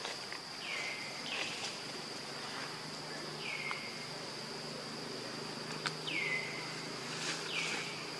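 Forest insects droning steadily on one high pitch. About five short calls slide downward in pitch over the drone, and a single sharp click comes about six seconds in.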